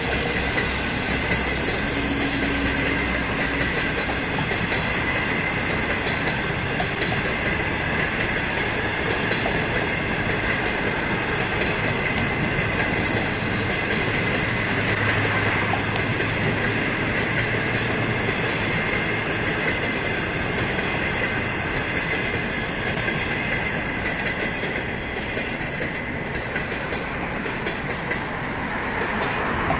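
A locomotive-hauled passenger train's coaches rolling past at close range, the wheels running over the rails with a steady rumble and a thin, steady high-pitched ringing tone. The sound eases a little near the end as the last coaches go by.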